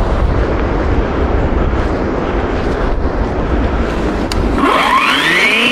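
Steady low rumbling noise. Near the end, a cordless electric chainsaw's motor spins up with a quickly rising whine that levels off high.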